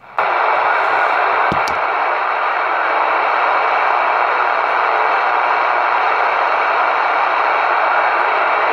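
CB radio receiver hissing with steady band static through its speaker, starting abruptly and holding level, with a couple of faint clicks about a second and a half in.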